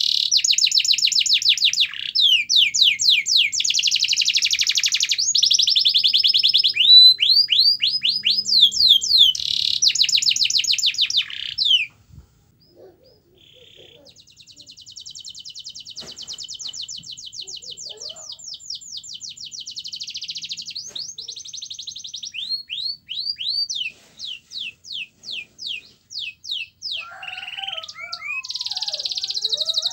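Domestic canary singing long rolling trills of rapid, repeated downward-sweeping high notes. The song breaks off about twelve seconds in, starts again more quietly a couple of seconds later, and grows louder toward the end.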